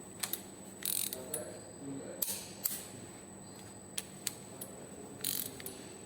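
Ratchet wrench clicking in short, irregular runs while cylinder head bolts are tightened.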